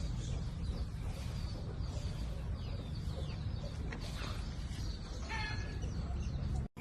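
Chickens clucking among many short, high, falling chirps, over a steady low rumble. The sound cuts out for a moment near the end.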